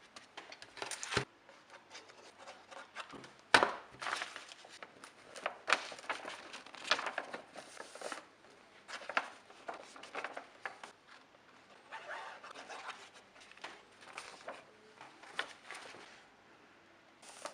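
Paper and a small cardboard box being handled and pressed together: irregular rustling and rubbing, with a couple of sharper knocks about one and three and a half seconds in.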